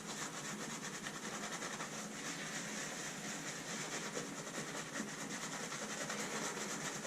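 Horse-hair shaving brush working soap into a lather with rapid, even strokes, a steady wet swishing.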